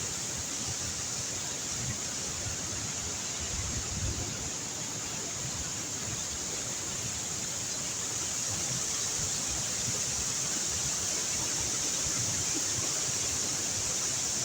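Waterfall: a steady rush of water falling from a great height, growing slightly louder about halfway through.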